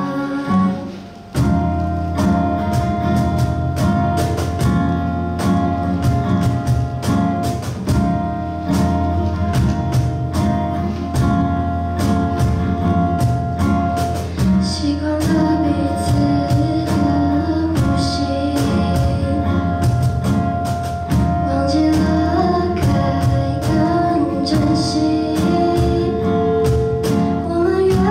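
A live acoustic band: a female vocalist sings into a microphone over strummed acoustic guitar and a cajon beat. The music drops out briefly about a second in, then carries on.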